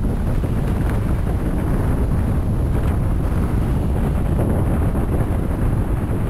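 Wind blowing over the microphone of a skier moving fast down a piste: a steady, loud rumble.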